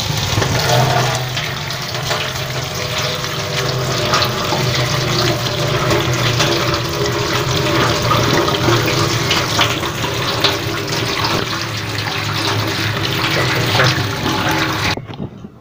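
Tap water running hard onto raw cut potato fries in a plastic colander as a hand stirs them to rinse off the starch. The water cuts off suddenly near the end.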